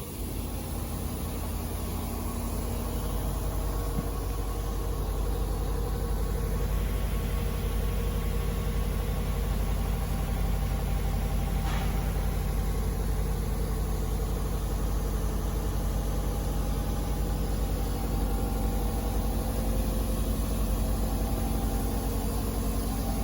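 A motor or engine running steadily at a constant speed, a low, even hum that starts and stops abruptly.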